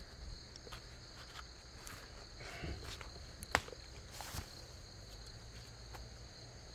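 Faint, steady chirring of insects in the grass, with a few soft rustles and one sharp click about halfway through.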